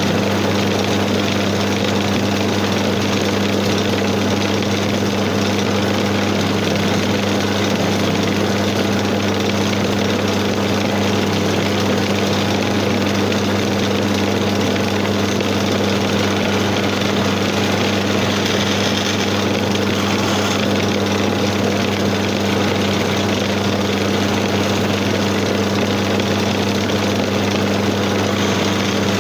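Electric motor of a floor-level wood lathe running with a steady hum, while a hand chisel cuts a spinning wooden spindle.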